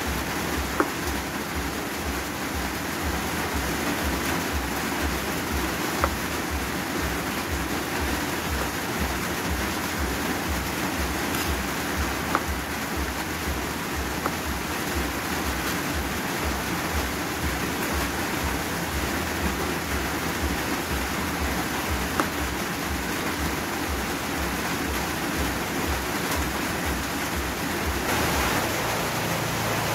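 Steady rain, an even hiss with a low pulsing rumble beneath it. A few light knife taps on a plastic cutting board stand out here and there.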